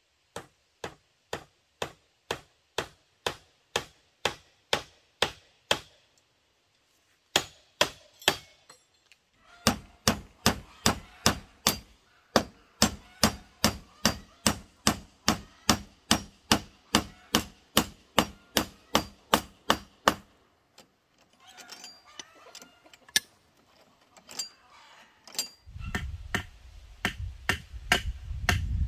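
A hand tool striking bamboo again and again in a steady rhythm, about two blows a second at first, then after a short pause faster, about three a second, for some ten seconds. Lighter, irregular knocks follow, and near the end a low rumble comes in.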